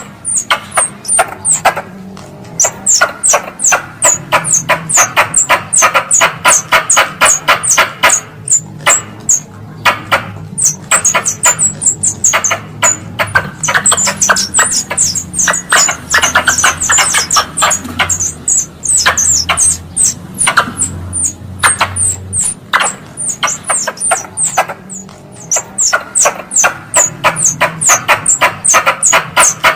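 Wild squirrel lure call: a rapid chattering of sharp chips, several a second, each with a short high squeak, coming in bouts with brief pauses.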